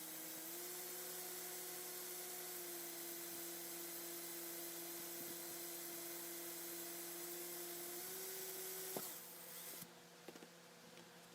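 Small electric drill running with a steady, faint whine, its pitch dipping and rising slightly under load while it drills the pivot-pin hole in the knife's bolster. About nine seconds in it is switched off with a click and winds down, followed by a few light taps.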